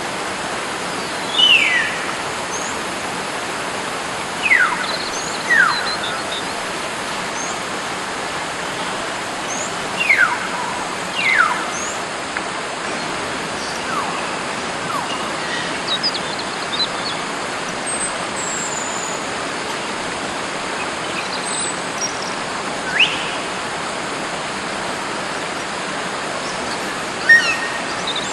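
Wild hill myna giving loud, clear whistles that slide sharply down in pitch, about seven calls spaced irregularly, over a steady background hiss.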